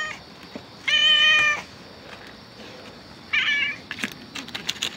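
Hungry stray cat meowing twice: a loud, steady, high-pitched meow about a second in and a shorter, fainter one past three seconds. A few light clicks follow near the end.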